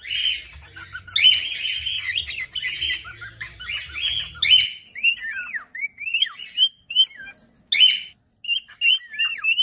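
Cockatiel chattering and singing. For about the first half it gives a run of scratchy, raspy calls, then it switches to clear whistled notes that slide up and down, broken by a couple of short scratchy calls.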